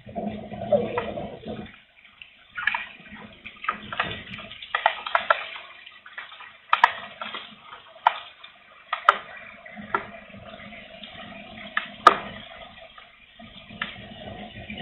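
Light rain: scattered raindrops dripping and tapping at irregular intervals, with a gust of wind rumbling on the microphone in the first couple of seconds.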